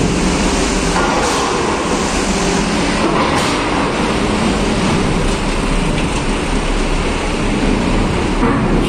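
Heavy diesel trucks driving across a ferry's steel loading ramp close by: a steady, loud engine and rolling rumble, with a couple of short clunks, about a second in and again after about three seconds.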